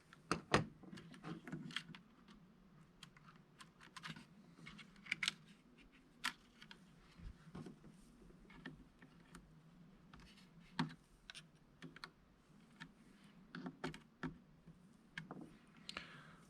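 Faint, irregular small clicks and taps of a tiny screwdriver and tweezers working against a drone's small parts, spaced unevenly, with a few louder clicks near the start.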